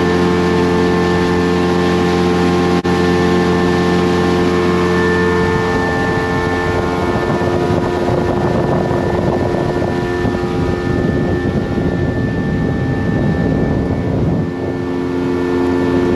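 The boat's outboard motor runs under way at a steady engine speed, giving an even drone. A rushing noise of water and wind grows stronger from about six seconds in.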